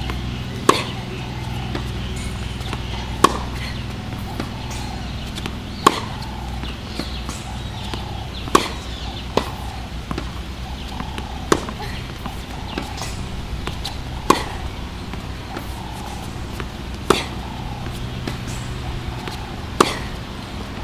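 Tennis racket strings striking the ball on groundstrokes: eight sharp pops, evenly spaced about every two and a half to three seconds, with fainter knocks between them over a steady low hum.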